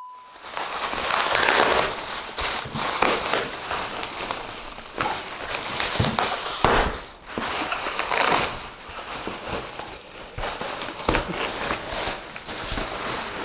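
Plastic packaging wrap crinkling and rustling irregularly as it is handled in an opened box, along with cardboard packing sheets shifting.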